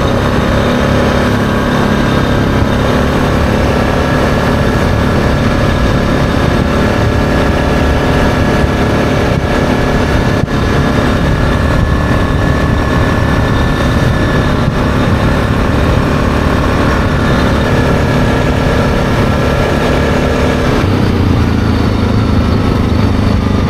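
ATV engine running steadily as it rides along. About 21 seconds in, the engine note changes and drops lower.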